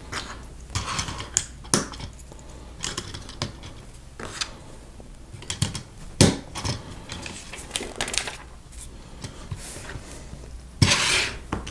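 Plastic Lego bricks clicking and clattering as pieces are handled and pressed together, a scattered run of sharp clicks of varying loudness, with a short rustling scrape near the end.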